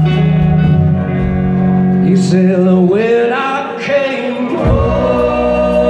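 Live blues-rock band playing, electric guitar and bass with a male voice singing, heard from the audience floor. The low bass drops out for about a second past the middle, then comes back in.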